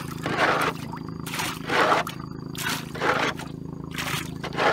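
Water being bailed out of a wooden boat with a cut-down plastic jug: repeated scoops and splashes about once a second, over a steady low hum.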